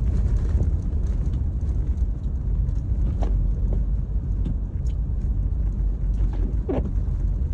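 Steady low rumble of a small four-wheel-drive car being driven on a snowy road, heard from inside the cabin, with a few brief faint sounds on top.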